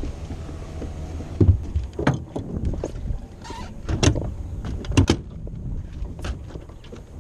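Irregular knocks and clunks from a small fishing boat being handled, over a steady low rumble, with sharper knocks about 2, 4 and 5 seconds in.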